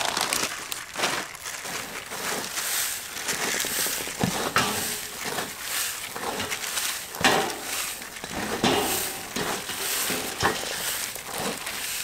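Hands rubbing and tossing dry breadcrumbs in a large aluminium tray: an irregular crunchy rustling with small crackles as the crumbs are worked between the fingers and against the metal.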